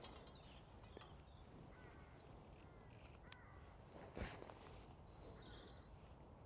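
Near silence: faint riverside ambience with a few distant bird calls, a single click about three seconds in and a brief rustle about four seconds in.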